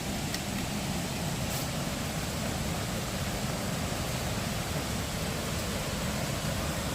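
Steady rush of water from a stream and waterfall cascading through a rocky gorge.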